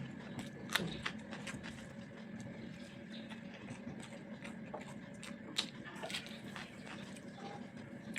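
A person eating: scattered wet chewing and mouth clicks, with two sharper clicks about a second in and past the middle, over a steady low hum.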